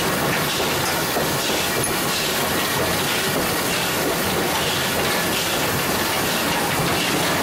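Steam locomotive running, heard from inside its cab: a steady, loud rush of steam and machinery noise with a faint beat repeating about once a second.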